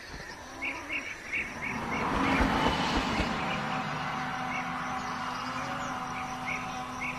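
A road vehicle passing by, its noise swelling to a peak about three seconds in and then easing into a low steady hum. Over it runs a series of short high bird chirps, most of them in the first few seconds and a few more near the end.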